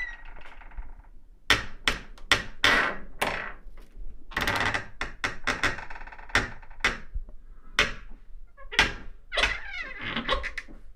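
A door creaking on its hinges, with a long irregular series of heavy thuds and knocks in the middle, and another creak near the end.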